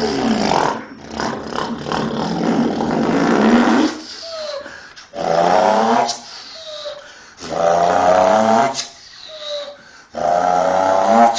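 A person imitating a truck engine by mouth as it pulls away and goes up through the gears: a growling rev that rises in pitch and breaks off, about four times, with short pauses between like gear changes.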